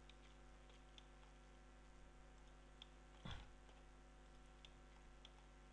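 Near silence over a steady electrical hum, broken by a few faint computer-mouse clicks and one louder short knock about three seconds in.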